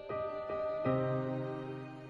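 Slow, sad instrumental background music of sustained notes; a new low note comes in just under a second in and the music then begins to fade.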